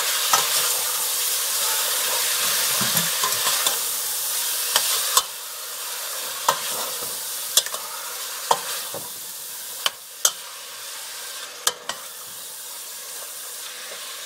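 Minced lamb and beef sizzling in oil in a stainless steel pot as it is stirred and broken up with a spoon, the spoon clacking against the pot now and then. The sizzle drops quieter about five seconds in.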